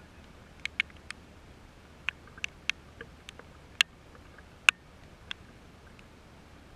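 Raindrops dripping onto a hard surface close to the microphone: about a dozen sharp ticks at irregular intervals, the loudest a little past the middle, over a faint steady hum.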